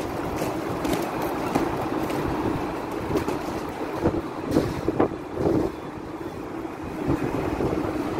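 Steady city street traffic noise with wind rumbling on the microphone, and a few short louder bumps around four to five and a half seconds in.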